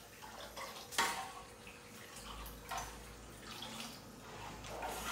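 Kitchen handling sounds while cooking: a sharp clink of a utensil about a second in, then a few lighter knocks and rustles of pans and dishes.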